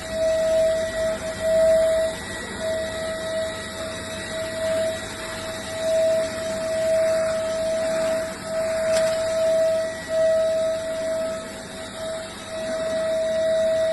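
Wet and dry vacuum cleaner running: a steady whine over a hiss of rushing air, the whine dropping out for moments now and then.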